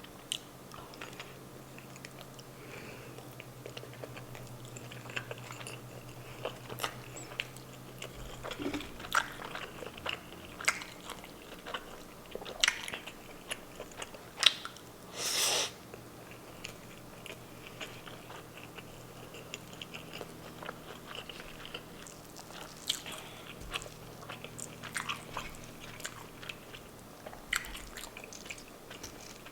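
Close-miked eating: a person biting and chewing Filipino breakfast meats, with scattered wet mouth clicks and crunches. About halfway through there is one louder noisy burst lasting under a second.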